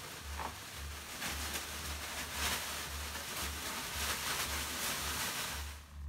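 Leafy bath brooms (veniks) swishing and rustling as they are waved and patted over a person lying on the steam-room bench: a rustling hiss that swells several times and drops away near the end.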